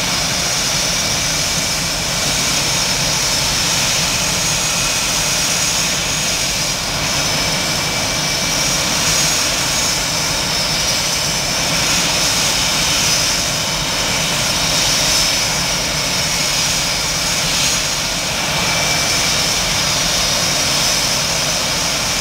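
Jet aircraft engines running, a steady high whine over a constant rush.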